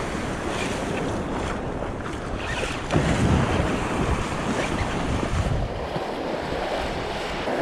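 Small surf waves breaking and washing up the beach close by, with wind buffeting the microphone; the wash swells about three seconds in.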